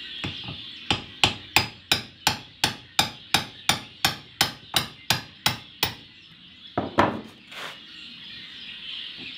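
Hammer blows knocking the drive flange off the pinion shaft of a Series 1 Land Rover rear differential: a steady run of about fifteen sharp strikes, some three a second, then a short pause and two louder blows.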